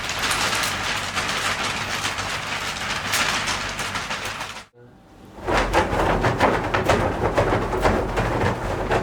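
A Foley sound effect performed by hand with props: a dense, continuous rattling and crackling noise. It cuts out about five seconds in, then resumes louder with a heavier low rumble.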